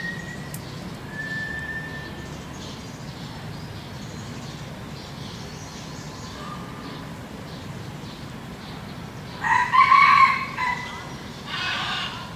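A peafowl calling: a loud call near the end, followed by a shorter, noisier one, over a steady background hiss with faint bird whistles early on.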